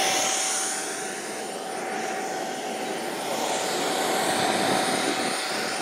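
Radio-control model airplane engine running continuously, its pitch drifting gently up and down, with a steady tone held underneath.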